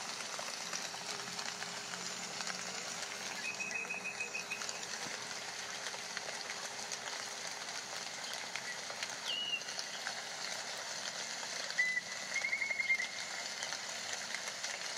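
A steady soft hiss with a faint low hum under it, broken by a few short high chirps and trills: one about four seconds in, a brief falling chirp near nine seconds, and another trill about twelve seconds in.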